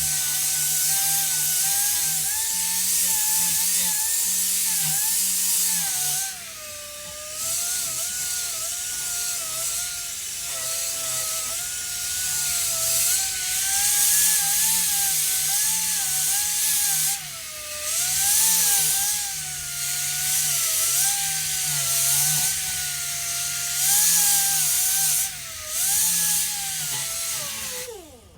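Air-powered sander running with a hiss of exhaust air and a whine that wavers in pitch as it is pressed against a rusty bicycle disc-brake rotor, sanding off the rust. It is let off briefly three times, and near the end it is released and spins down to a stop.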